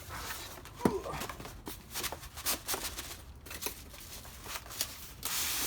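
Cardboard box being opened and its paper-wrapped contents handled: rustling and crinkling with small clicks and knocks, and a longer scratchy noise lasting about a second near the end.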